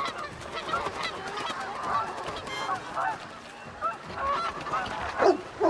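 A flock of geese honking, many overlapping calls, with a few louder, sharper calls near the end.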